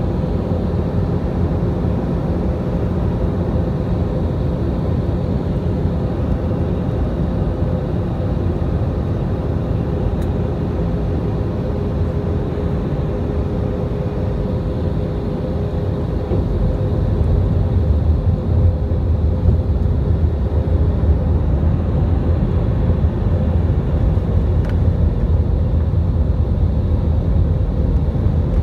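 Jet airliner cabin noise heard at a window seat in flight: a steady engine drone and airflow rumble with a faint steady hum. It grows louder and deeper about halfway through.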